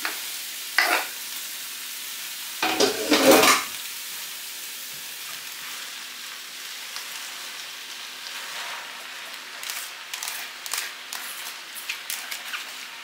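Chopped onion frying in oil in a pan, sizzling steadily as handfuls of raw spinach leaves are tipped in. A sharp tap about a second in and a louder clatter and rustle of leaves and handling around three seconds in, then light rustles and taps while the sizzle quietens toward the end.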